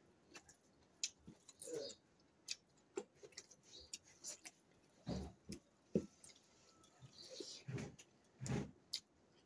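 Quiet close-up eating sounds: chewing and wet lip smacks of people eating broccoli and rice by hand, with scattered soft clicks and a few short low mouth sounds.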